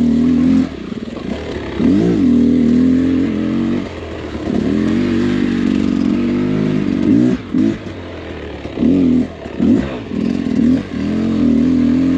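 Dirt bike engine running at low speed under a constantly changing throttle. It revs up and eases off again and again, with several short, sharp throttle blips in the second half.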